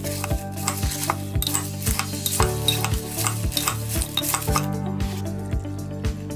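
Metal spoon stirring dry rice and bay leaves in a glass jar, scraping and clinking against the glass, over background music with a steady beat.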